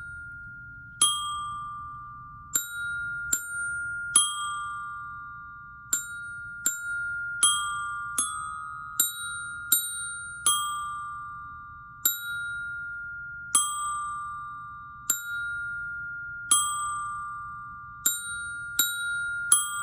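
Glockenspiel bars struck one note at a time with a mallet, playing a simple beginner tune on F, D and E-flat. The notes are mostly evenly spaced, about one and a half seconds apart, with a few quicker pairs, and each note rings on after it is struck.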